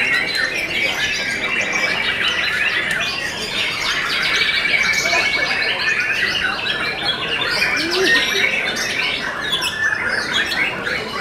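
Several white-rumped shamas (murai batu) in contest cages singing at once: a dense, continuous chorus of overlapping quick whistled notes and glides.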